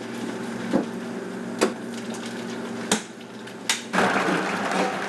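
Four sharp knocks or clicks spaced about a second apart over a steady low hum, then a dense wash of noise from about four seconds in.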